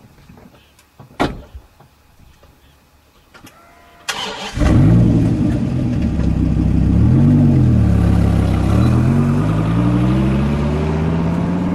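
Dodge Viper V10 starting after a short crank about four seconds in, then idling with one quick blip of the throttle before rising steadily in pitch as the car pulls away. A sharp thump and a few lighter clicks come before the start.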